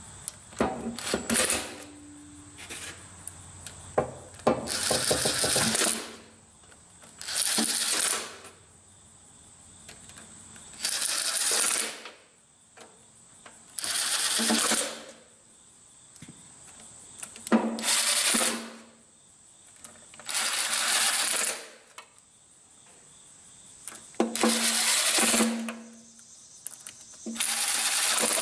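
Cordless impact driver hammering down engine oil pan bolts one after another: nine short runs of about a second each, a few seconds apart, with small clicks of the tool and socket being moved between bolts. The bolts are being tightened in order from the middle of the pan outward.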